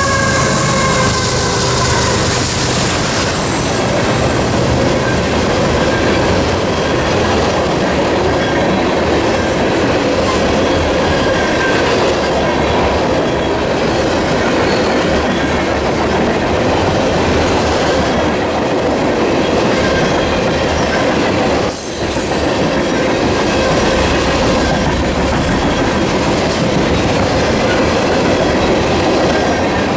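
Empty ethanol tank cars of a long freight train rolling past close by: a loud, steady rumble of steel wheels on rail. In the first few seconds a high wheel squeal rings over it and then fades.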